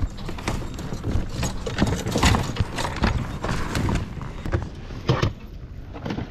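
Irregular hollow knocks and clunks of gear being handled on a plastic fishing kayak, with close camera handling noise.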